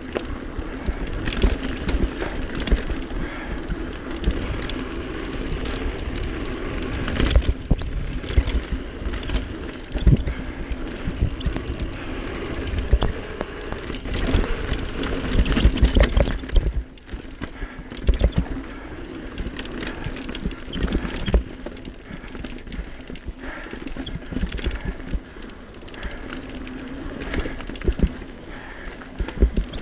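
Santa Cruz mountain bike riding fast down dirt singletrack: steady tyre rolling noise on dirt and stones, with frequent clacks and rattles from the bike over bumps. There is a short lull about halfway through.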